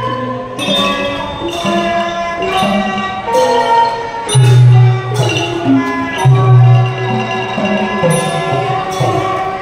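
Thai piphat mon ensemble playing: Mon-style gong circles (khong mon) and xylophone (ranat) ring out a busy melodic line over percussion. Loud low held notes come in twice, about halfway through.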